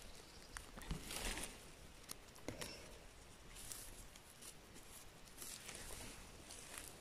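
Faint rustling of moss and low forest plants as gloved hands pick chanterelle mushrooms, in short uneven bursts with a few scattered sharp clicks and snaps.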